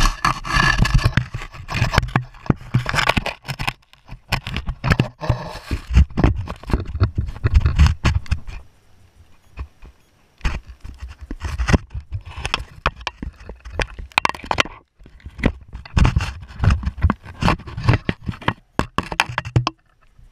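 Irregular scraping, rubbing and knocking of a camera being pushed through a hole in the floor and moved around the space beneath, with a few short pauses.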